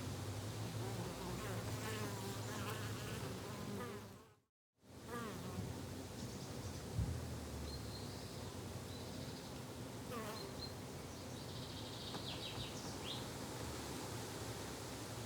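Flying insects buzzing steadily in a garden ambience, with birds chirping, mostly later on. The whole sound drops out briefly about four and a half seconds in, and there is a short knock about seven seconds in.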